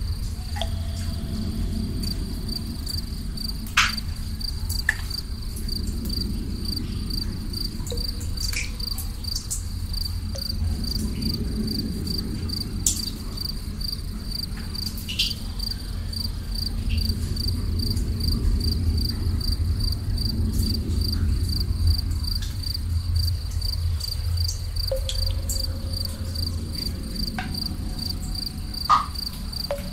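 Crickets chirping in a steady, evenly pulsing high trill over a low steady rumble, with a few sharp water drips plinking every several seconds.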